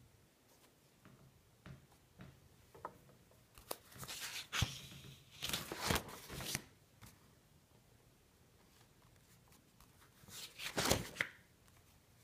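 Paper pages of a spiral-bound sketchbook being turned: rustling from about four to six and a half seconds in, and again briefly near the end, with a few faint handling clicks before the first turn.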